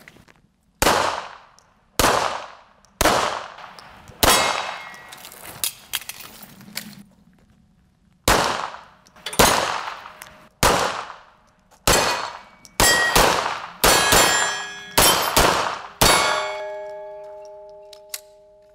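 9 mm CZ P-09 pistol being fired, about fifteen shots, first singly about a second apart and then in quicker strings, each with a metallic clang and ring. A ringing tone lingers after the last shot.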